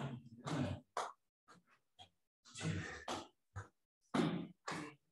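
A man breathing hard and grunting with effort while moving between high plank and forearm plank: a string of short, irregular exhalations and grunts.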